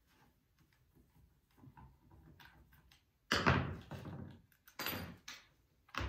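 Hand handling of a small mechanism being taken apart on a wooden workbench: faint fiddling and rattling, then a loud knock about three seconds in and two shorter knocks near the end.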